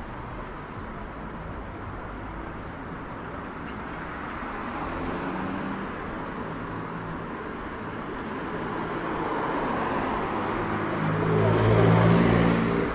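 Street traffic: motor vehicles running by with a steady road hum, one engine passing close and growing louder to a peak near the end before falling away.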